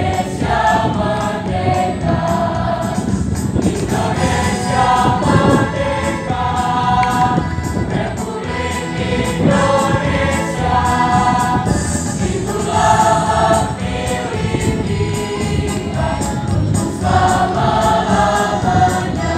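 Mixed high school choir singing an Indonesian patriotic song.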